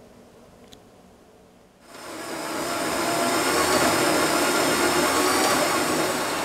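Quiet room tone with a single click, then about two seconds in a Biltema metal-cutting band saw comes in loud and settles to a steady run, its blade cutting an aluminium bar.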